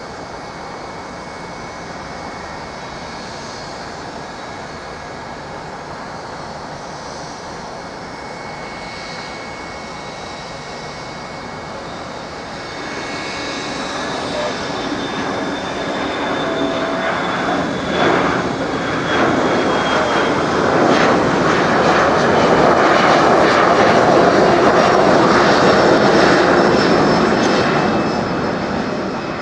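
Boeing 737-500's CFM56 turbofan engines, a steady jet noise that grows louder about halfway through as the airliner comes close, with a high whine that falls slightly in pitch, loudest near the end as it passes.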